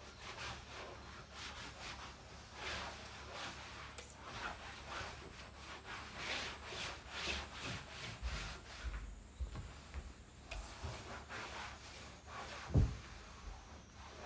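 Repeated rubbing strokes on a hard surface, several a second, with one low thump near the end.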